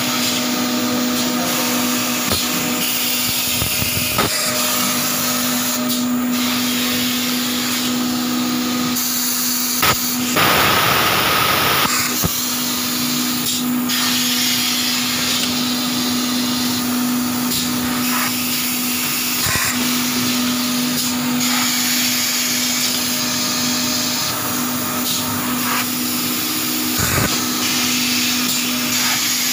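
Egg tray making machinery running: a steady motor hum with a constant tone and an airy, suction-like hiss. A louder rushing noise runs for about two seconds around ten seconds in, with a few short knocks.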